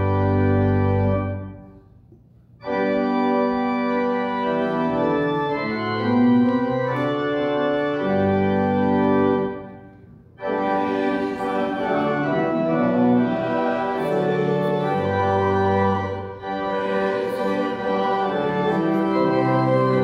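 Church organ playing slow, sustained chords, with two short breaks between phrases, about two seconds and ten seconds in.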